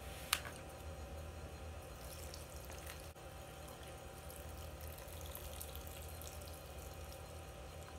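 Warm chanpon soup poured from a plastic takeout container onto noodles in a second container: faint liquid pouring, with one sharp click shortly after the start, over a low steady hum.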